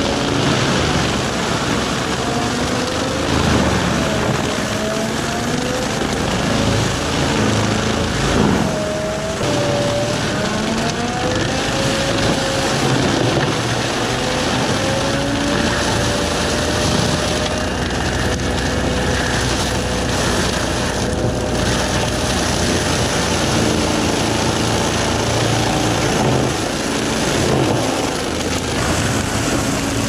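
Takeuchi TL12R2 compact track loader running a forestry mulcher head, the engine and spinning mulcher drum working under load as it grinds into brush and shreds branches. The machine's whine wavers up and down in pitch as the load on the drum changes.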